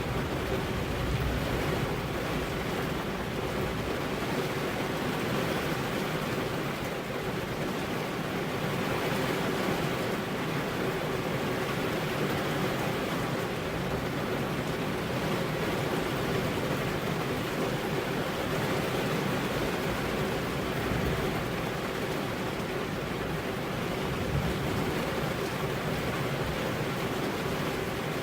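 Rain falling steadily on car window glass, an even wash of noise with no single drops or thunder standing out.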